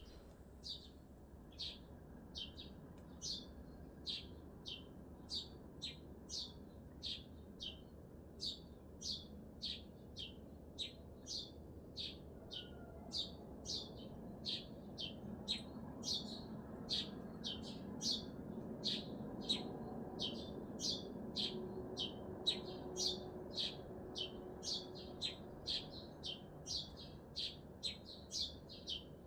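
A small bird calling a short, sharp, high chirp over and over, about two a second, over the low, steady hum of city noise that grows louder in the middle.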